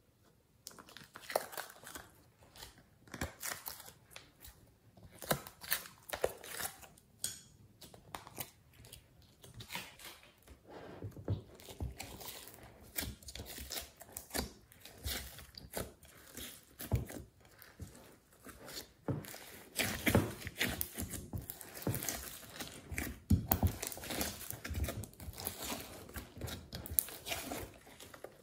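Glossy slime being handled: sticky, irregular crackling and squelching clicks as it is pulled, folded and squeezed by hand. Sparse at first, busier and louder from about a third of the way in.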